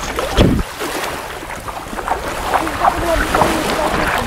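A hand splashing and sweeping through shallow seawater, with a loud splash about half a second in followed by water sloshing.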